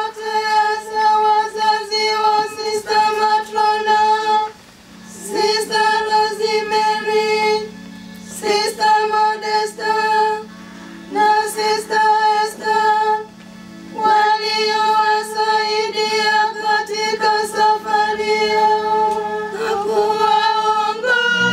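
Women's voices chanting a sung litany into a microphone, in five phrases with short breaks between them. A lower note is held underneath from about five seconds in, and a fuller low chord comes in right at the end.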